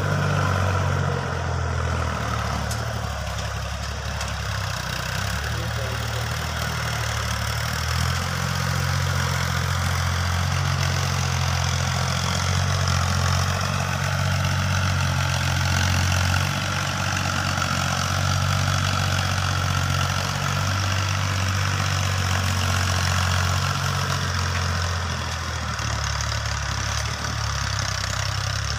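Fiat 480 tractor's three-cylinder diesel engine running steadily as it pulls a tillage implement across a ploughed field, its note shifting slightly now and then.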